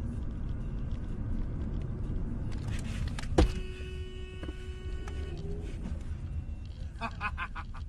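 Cabin sound of a moving car recorded by a dashcam: steady engine and road rumble. A single sharp knock comes about three and a half seconds in, followed by a car horn sounding for about two seconds. A brief burst of rapid clicking or crunching comes near the end.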